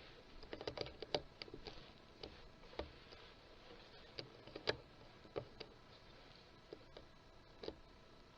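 A scatter of faint, sharp clicks and crackles at an uneven pace, most of them in the first five seconds, with a few single ticks later.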